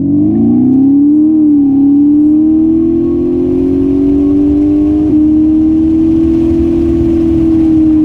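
Aftermarket active sound generator on an electric Tesla Model S playing a synthetic combustion-engine note that climbs in pitch as the car accelerates. The pitch steps down suddenly about five seconds in, like a gearshift, then climbs again and eases off near the end.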